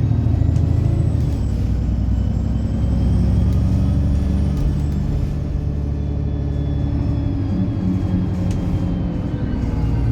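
Alexander Dennis Enviro 300 single-deck bus running, a steady low rumble under a high-pitched whine that rises in pitch over the first few seconds and then falls away.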